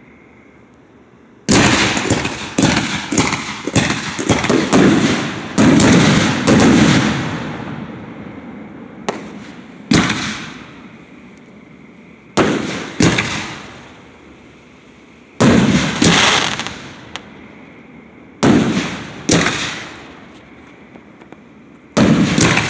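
Aerial fireworks shells bursting overhead. A rapid volley of sharp bangs starts about a second and a half in, then single and paired booms follow every few seconds, each trailing off in a fading echo.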